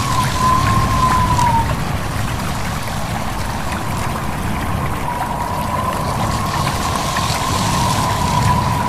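Stream water running and trickling over a steady low rumble, with a thin wavering whistle for the first second or so and again from about the middle on.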